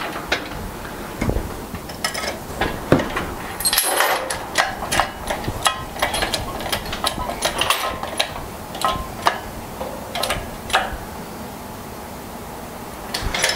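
Irregular metallic clanks and clicks from a one-ton shop crane and its lifting chain as the crane shifts a heavy air compressor across a steel frame. The clanking eases off for a couple of seconds near the end.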